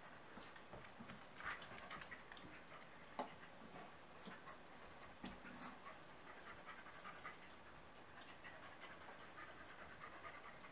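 A dog panting faintly as it searches, with scattered light ticks and taps and one sharper tap about three seconds in.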